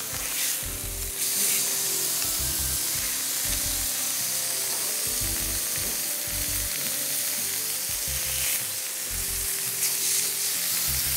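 Beef steak sizzling steadily on a hot grill pan, with a few low bumps of handling.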